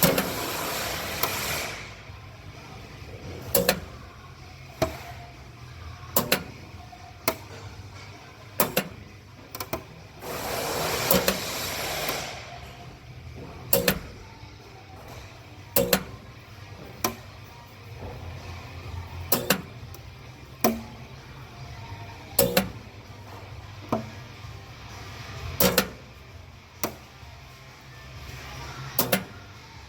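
Repeated sharp metal knocks, one every second or so, from hammer work on a car's sheet-metal quarter panel, with two bursts of steady hiss.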